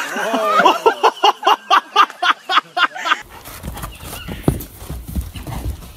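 A person laughing hard in quick, even bursts, about four a second. Then, after a sudden cut about three seconds in, a horse's hoofbeats thud on soft dirt.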